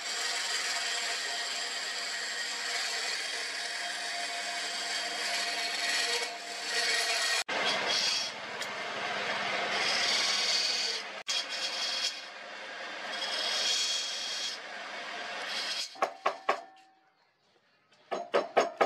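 Wood turning: a hand chisel scraping a spinning wooden handle blank on a lathe, a steady scraping hiss over the running lathe that breaks off briefly twice. Near the end it stops and a run of quick, sharp hammer taps follows.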